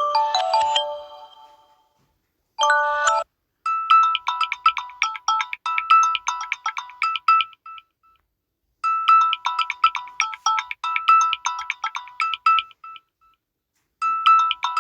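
Samsung Galaxy A21s ringtones playing one after another. A chime fades out, a brief tone of a few notes sounds, then a bright, fast tinkling melody plays twice with a short pause between and starts a third time near the end.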